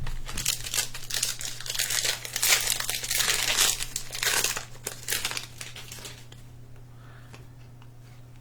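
Crinkling and tearing of a trading-card pack's wrapper as it is opened, dense for about five seconds and then quieter handling.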